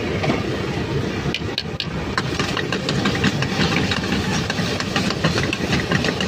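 Metal ladle clinking and scraping against a small steel frying pan as keema is stirred, a run of quick sharp taps from about a second in, over a steady low rumble.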